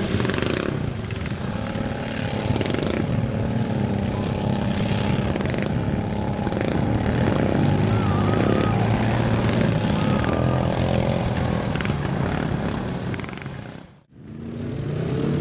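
Quad (ATV) engines running with a steady drone. Near the end the sound drops out briefly, then an engine comes back rising in pitch.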